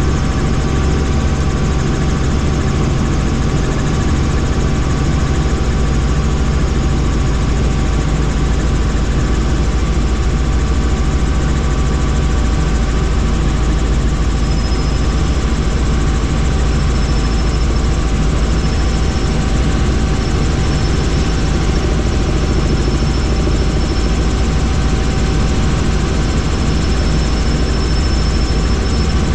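Helicopter in flight: steady, loud engine and rotor noise, with a faint high whine coming in about halfway.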